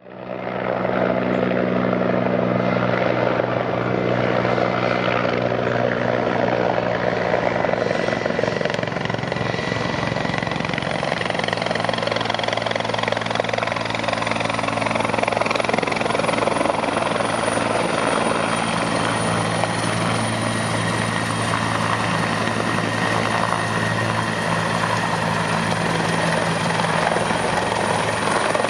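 Bell 412EP helicopter in flight: its main rotor and twin turbine engines running steadily, with a thin, high turbine whine that climbs slightly in pitch about a third of the way in.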